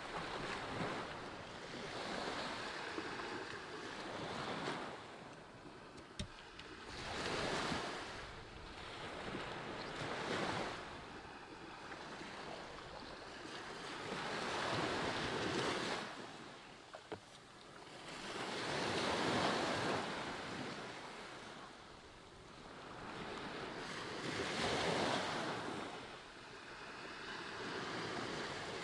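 Small ocean waves breaking and washing up a sandy beach, a steady rush that swells and fades every few seconds, with a couple of brief faint clicks.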